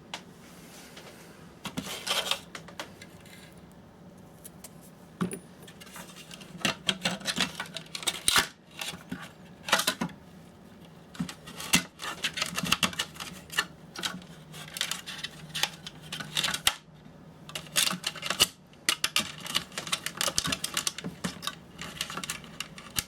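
Irregular clicks, taps and rattles of hand tools and small metal parts being handled while a dehumidifier's fan motor is taken apart, over a faint steady hum.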